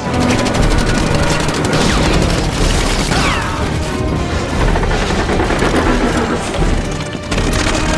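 Film soundtrack of an air raid: rapid machine-gun fire during the first couple of seconds, then explosions and crashing debris, all under music.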